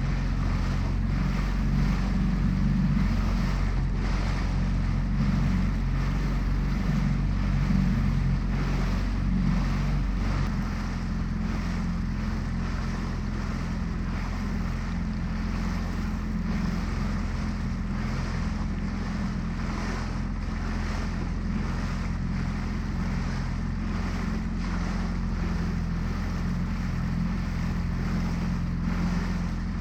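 Outboard motor of a small inflatable boat running steadily, with wind noise on the microphone. About ten seconds in the engine note changes and gets a little quieter.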